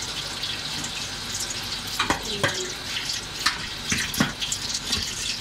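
A kitchen tap runs steadily into a steel sink while a pot is rinsed under it. A handful of sharp knocks, from the pot being handled against the sink, come from about two seconds in.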